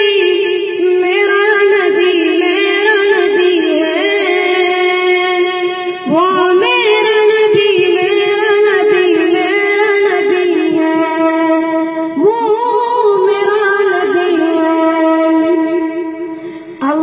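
Boys' voices singing a naat, a devotional Urdu hymn in praise of the Prophet, in long, held, ornamented phrases. A new phrase starts about six seconds in and again about twelve seconds in, and the last one trails off just before the end.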